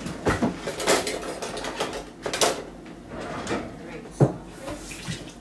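Irregular clatter of kitchen things being handled: short knocks, clicks and scrapes, with one sharp knock about four seconds in.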